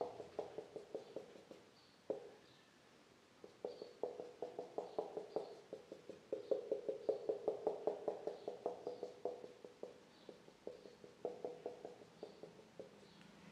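Felt-tip marker drawing short dashes on a whiteboard: runs of quick squeaking strokes, about six or seven a second, in bursts with short pauses between them.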